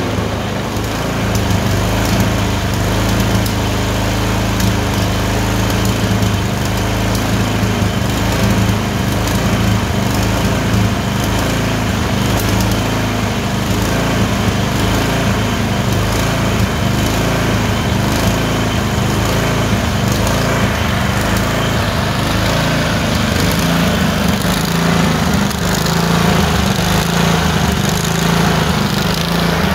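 Tecumseh 22 HP twin-cylinder small engine running unevenly, its speed wandering and rising near the end. This is surging from random misfires that alternate between the two cylinders.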